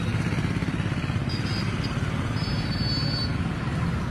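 A vehicle engine running close by: a steady low rumble with a fast flutter, amid street noise.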